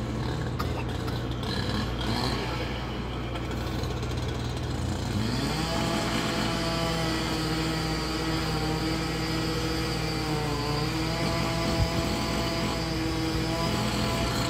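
Engine of a heavy demolition machine revving up about five seconds in and holding a steady raised pitch, dipping briefly as if under load, then dropping back at the end. A low steady hum runs before it, and there is a single sharp knock in the second half.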